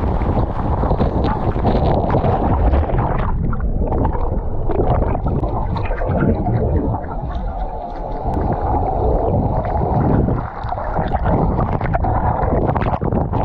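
Waterfall water rushing and splashing, then from about three seconds in a muffled, churning rush full of bubbles as the camera goes under the water beneath the falls.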